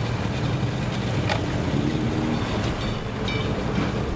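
Mercury outboard motor on a small jon boat running steadily at low speed as the boat motors past, a continuous low engine drone with the wash of its wake.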